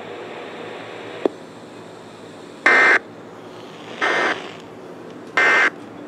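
Emergency Alert System end-of-message data bursts from an FM radio: three short, harsh two-tone digital warbles about a second apart, marking the close of the Required Monthly Test. A steady radio hiss runs underneath, with a faint click about a second in.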